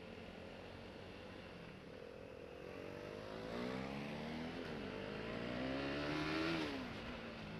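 Motorcycle engine accelerating, its pitch rising. It dips briefly at a gear change about halfway through, climbs again, then drops as the throttle closes near the end. Wind rush on the mounted camera runs underneath.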